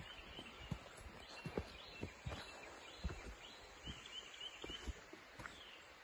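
Footsteps on a rocky dirt trail, irregular dull steps about every half second, with a bird chirping in short runs of quick notes over a faint steady outdoor background.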